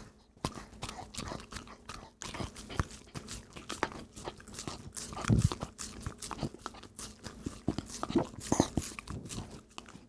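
A dog licking peanut butter off a spatula, recorded right at its mouth by a wireless mic transmitter clipped to the spatula: a rapid, irregular run of wet licks and lip smacks.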